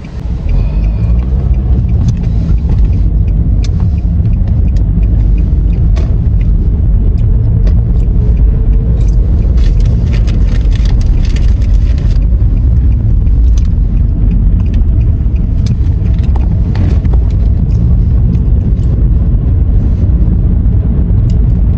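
Road noise inside a moving car's cabin: a steady low rumble of tyres and engine. The engine note rises about a second in as the car picks up speed.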